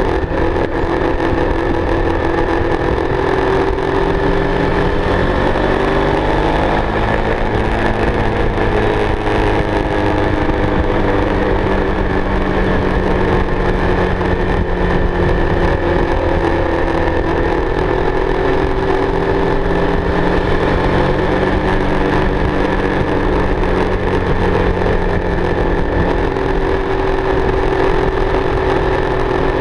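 Motorcycle engine running at road speed, heard from the rider's seat under steady wind and road noise. The engine's pitch climbs for a few seconds about five seconds in, then holds and dips gently with the throttle through the bends.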